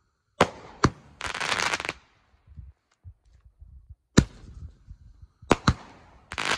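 Suicide Kings 5-shot Roman candle firing: sharp bangs as its shots go off, each pair followed by a burst of crackling stars, once in the first two seconds and again near the end.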